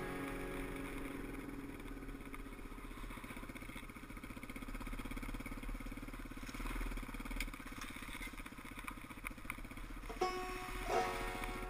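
Dirt bike engine running at a moderate pace with small rises in speed, heard from the bike itself. Banjo music fades out at the start and comes back in near the end.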